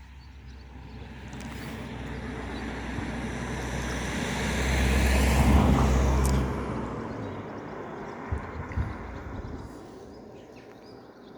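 Passenger train passing by at speed. Its rumble builds steadily, is loudest a little past halfway, with a low engine hum, then fades away as it moves off.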